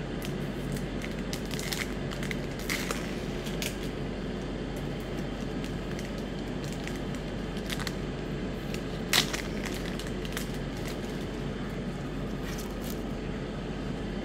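Magic: The Gathering booster pack's foil wrapper crinkling and tearing as it is opened by hand, in scattered short crackles with one louder crinkle about nine seconds in. A low steady hum sits underneath.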